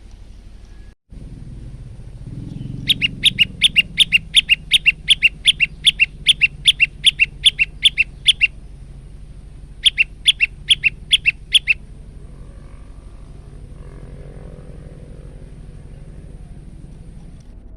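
Male prenjak lumut singing: a fast run of sharp, repeated chirps, about four a second, lasting about five seconds, then after a short pause a second, shorter run of the same chirps.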